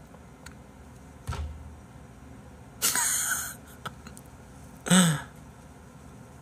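A man's quiet, breathy laughter close to a microphone: a sharp exhale through the nose about three seconds in, then a short chuckle falling in pitch about five seconds in.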